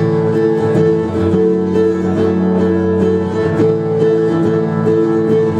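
Instrumental music between sung lines: guitar playing steady plucked notes over held chords.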